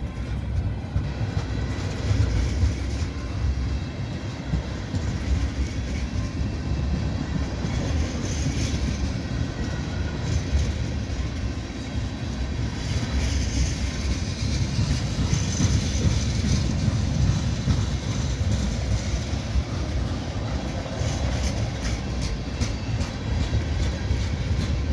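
Railway tank cars of a long freight train rolling past: a steady low rumble of steel wheels on rail, with wheel clacks over the rail joints and crossing, sharper near the end.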